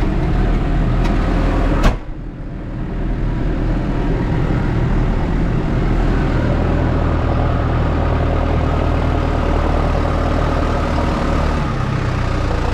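New Holland T5050 tractor engine running steadily, heard from inside the cab while it drives and lifts the front loader. A single sharp knock comes about two seconds in, and after it the sound is more muffled.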